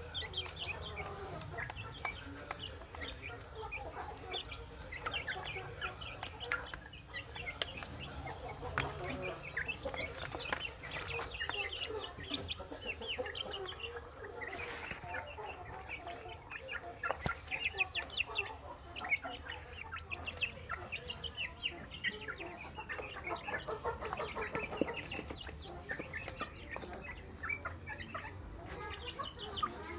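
A flock of young chickens clucking and peeping as they eat, many short high calls overlapping without a break, with scattered sharp clicks.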